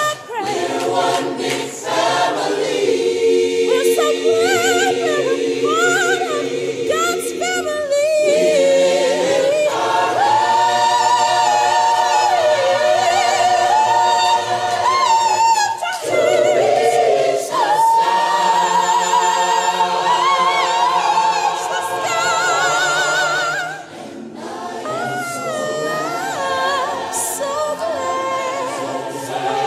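Choir singing a hymn a cappella, the voices holding long notes with vibrato. It grows quieter about two-thirds of the way through.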